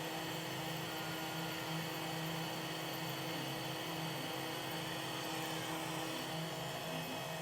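Home-built laser CNC with an ATOMSTACK M50 laser module running: a steady machine hum and hiss, with a lower hum that starts and stops in short stretches.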